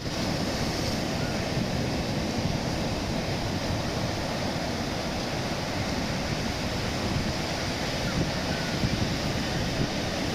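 Ocean surf: a steady wash of breaking waves, with no single wave standing out.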